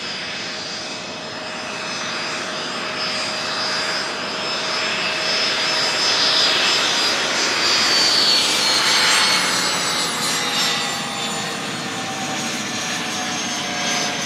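Learjet 40 business jet passing on its twin Honeywell TFE731 turbofans: steady jet noise with high whining tones that slide slowly down in pitch. The sound builds to its loudest about eight or nine seconds in and eases off after.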